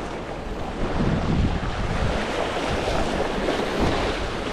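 Strong wind buffeting the microphone over choppy waves lapping and splashing against the bank.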